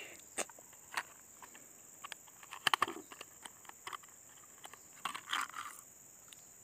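Clear plastic lure case being pried open and handled: scattered clicks and crinkles of the plastic, with a cluster of sharper clicks around the middle and a short crinkling rustle a little past five seconds in, as the lure with its treble hooks is taken out.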